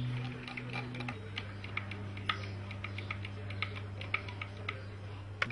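Small, irregular clicks and ticks of a hand screwdriver turning brass screws into a humidor's hinge and wood, several a second. A low steady drone runs underneath and drops in pitch about a second in.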